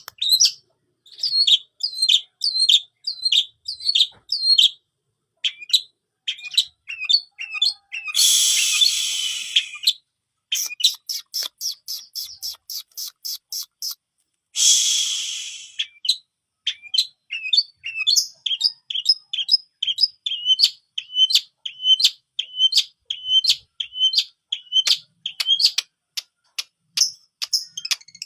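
Long-tailed shrike (cendet) singing hard, its song laced with mimicked prinia (prenjak) calls: a string of short, sharp repeated chirps, two long harsh rasping buzzes about eight and fourteen seconds in, and a fast run of clicking notes between them.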